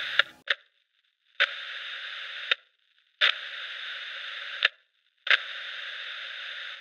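Two-way radio keying up with no voice: three bursts of static hiss, each a second or more long and opened and closed by a sharp squelch click, after a couple of short clicks near the start.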